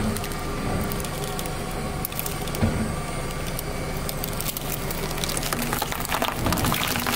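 Car tyre rolling slowly over cucumbers stuck with wooden skewers, the skewers snapping and splintering in many small sharp cracks as the cucumbers are squashed, over a steady low hum.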